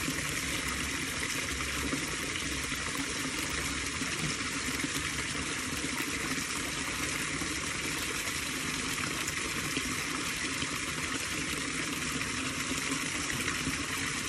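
Steady rush of running water in a shallow creek, even and unbroken.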